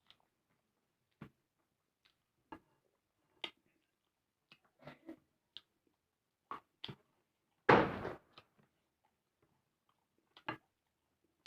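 Eating sounds: a scatter of short mouth smacks and small clicks, with one louder, longer noisy burst about eight seconds in.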